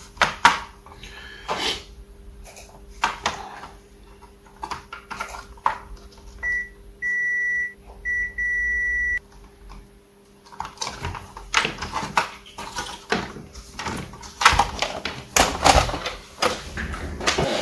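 A multimeter's continuity beeper sounding four times in quick succession around the middle, two short beeps and two longer ones of almost a second each, as probes are touched to MOSFET pins on a laptop motherboard. Light clicks and taps of handling come and go over a faint steady hum.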